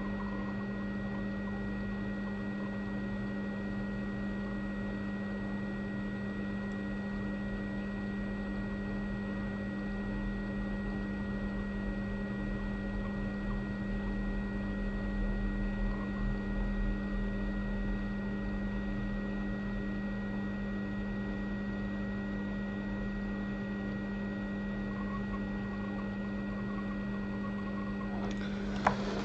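Hot air rework station running steadily while the touch IC is reflowed onto the board: a steady electrical hum with a faint high whine and light hiss.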